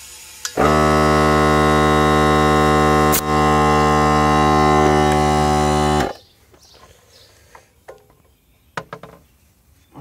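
Air compressor motor running loud, starting abruptly about half a second in, dipping for a moment about three seconds in, then cutting off suddenly after about five and a half seconds.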